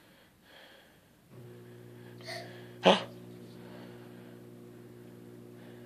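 A faint, steady machine hum starts about a second in and holds. About halfway through, a toddler lets out one short, sharp breath.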